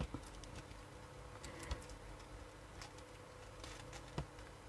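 Faint handling sounds of a ribbon being tied into a bow by hand: soft rustling with a few light, sharp clicks spread about a second apart.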